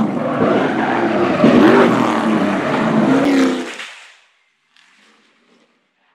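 Off-road race truck engine revving hard, its pitch rising and falling several times, then fading out about four seconds in.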